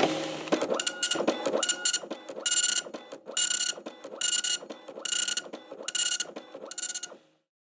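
Dot-matrix printer printing: the print head makes about eight short loud passes, roughly one a second, with quieter carriage and feed noise between them. It stops shortly before the end.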